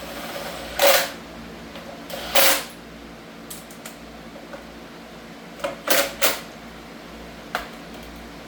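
Metal tools clanking and scraping against a stuck engine part: about six short, sharp metallic knocks, one near the start, one about two and a half seconds in, three in quick succession around six seconds and a lighter one near the end, over a steady shop hum.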